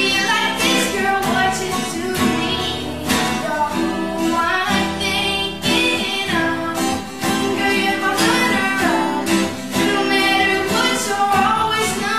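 A pop song playing: singing over a guitar accompaniment.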